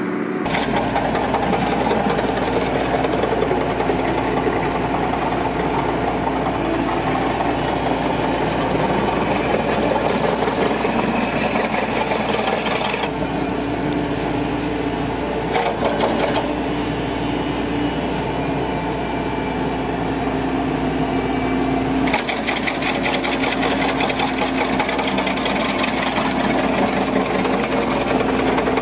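Excavator-mounted hydraulic flail mower head running, its rotor chopping grass and reeds on a ditch bank, over the excavator's engine. A steady, dense mechanical clatter.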